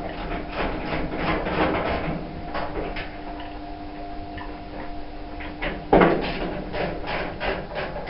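Clicks, knocks and clatter from tools and metal panels on a Hotpoint TL61 tumble dryer as the screws above its kick plate are taken out, with one loud thump about six seconds in. A faint steady hum runs underneath until the thump.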